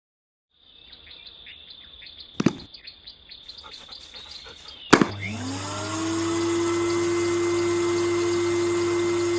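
Cordless handheld vacuum cleaner switched on with a sharp click about halfway through, its motor spinning up within a second to a steady whine with airflow hiss. Before that come faint handling clicks and one louder click.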